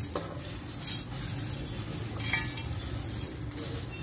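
Crisp roasted poha chivda (flattened rice flakes with peanuts and cashews) poured into a stainless steel bowl: a dry, hissing rustle of falling flakes, with a light clink against the bowl near the start.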